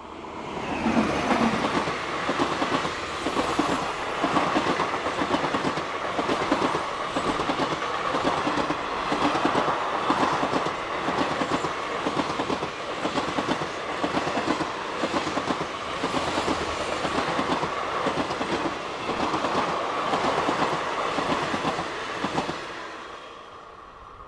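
Passenger train hauled by a WAP-5 electric locomotive passing at speed: loud from about a second in, its coach wheels clattering over the rail joints in a steady rhythm, then fading near the end as the last coach goes by.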